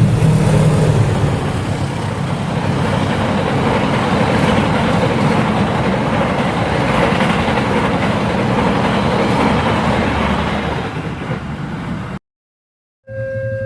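A train passing close by: a loud, steady rumble of wheels and rail noise with a low engine hum at first, cut off abruptly near the end. After a brief gap, an alternating two-tone electronic signal starts.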